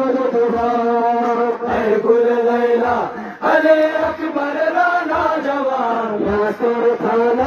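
Men chanting a noha, a Shia mourning lament for Ashura, in a repeated sung melody. A dull low thump falls on the beat about every two-thirds of a second.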